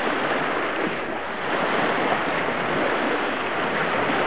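Steady rushing wind noise on the camcorder microphone, an even roar with no distinct events.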